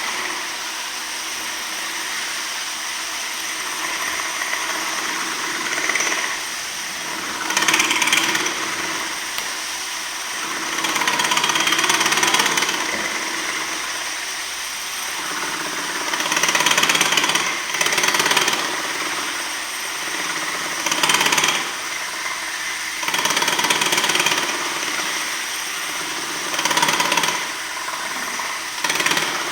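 Power tool grinding down a marble floor to remove lippage, a steady noise that grows louder in stretches of a second or two, again and again, as the tool bears down.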